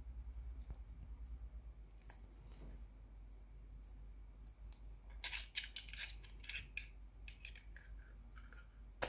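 Plastic battery cover of a Wi-Fi door/window contact sensor being fitted and pressed back onto its plastic housing: small plastic clicks and scrapes, a few at first, a dense run of them past the middle, and one sharp click near the end.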